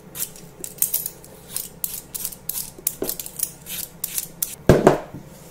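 Vegetable peeler scraping the tough skin off a pumpkin wedge in short repeated strokes, about two a second. A single louder thump comes near the end.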